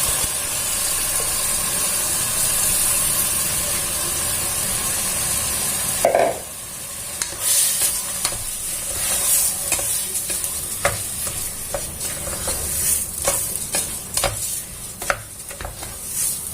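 Rice sizzling in hot tomato masala in a pan, steady for about six seconds, then a knock, and a spoon stirring the rice, scraping and clicking against the pan.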